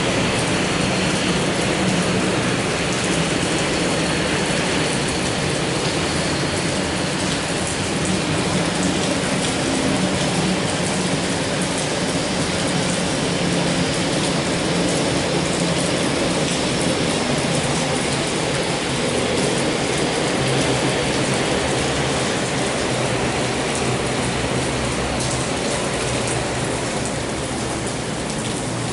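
Aircraft engines heard through a steady hiss of rain. In the first several seconds a four-engined BAe 146-family regional jet whines faintly high; this gives way to the low, steady drone of a Dash 8 Q400 turboprop taxiing.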